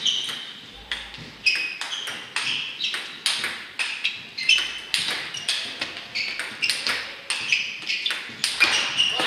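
Table tennis ball clicking sharply off bats and table in a rally, about two or three hits a second with a brief ring after each, echoing in a large hall.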